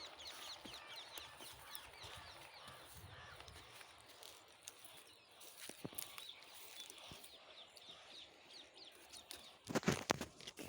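Faint chorus of small birds chirping, many short high chirps overlapping, thinning out after the first few seconds. A few light clicks, and a brief louder rustling thump near the end.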